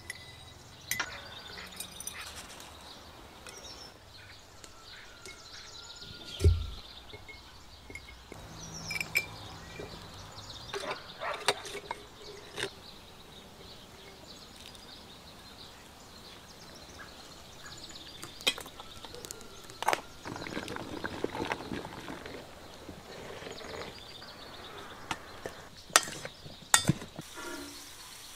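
Glass jars clinking and vegetables knocking as they are packed into the jars by hand, at irregular moments, with a heavier thump about six seconds in. Birds chirp now and then in the background.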